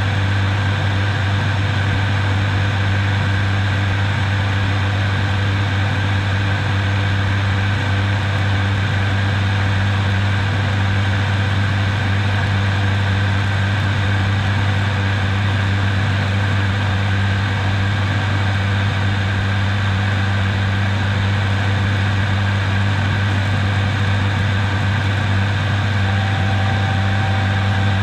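An ATR 72-600's turboprop engines and propellers in flight, heard inside the cockpit: a loud, steady drone with a strong low propeller hum over a constant rush of engine and air noise.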